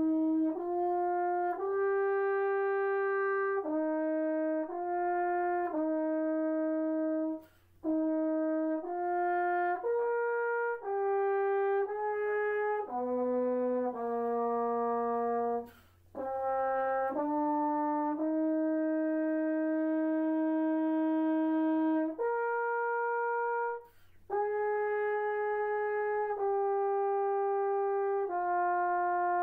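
A solo French horn playing a slow melody, one held note after another, with three short breaks between phrases. A faint steady low hum lies underneath.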